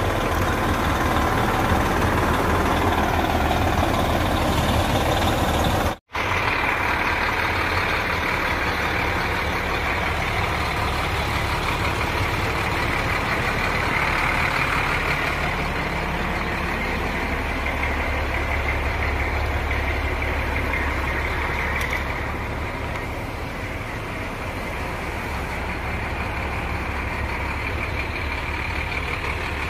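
Fire truck's diesel engine idling steadily, a deep, even low rumble. It cuts out for an instant about six seconds in.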